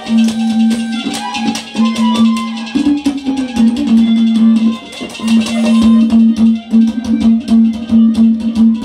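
Instrumental break of a Haryanvi ragni folk band: a held melody note played in repeated phrases over fast, busy drumming.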